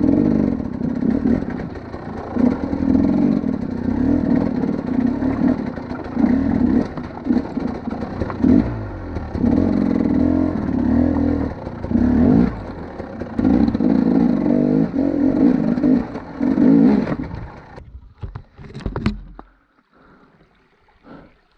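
KTM 300 XC two-stroke enduro engine ridden in uneven bursts of throttle, rising and falling, with clatter from the bike over rock. Then the engine stops and only a few short knocks follow.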